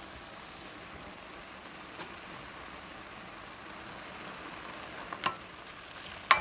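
Ground beef with chopped onion, bell pepper and celery sizzling steadily as it browns in a pan, with two sharp clinks of a utensil against the pan near the end.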